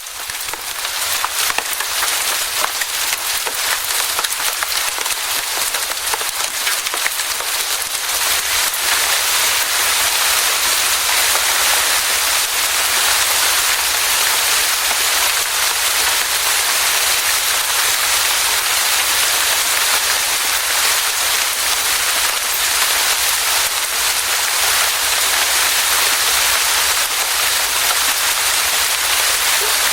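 Steady rain falling on foliage: a dense hiss of countless drops pattering on leaves, fading in over the first second and then holding even.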